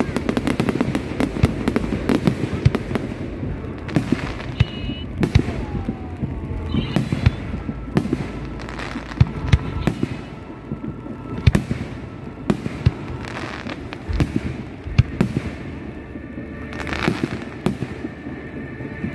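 Aerial fireworks display: dense crackling at first, then a run of sharp bangs from bursting shells, sometimes several in a second.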